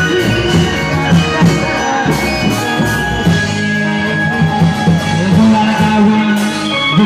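Loud live Indramayu reog music: drums and other percussion struck under held melodic notes.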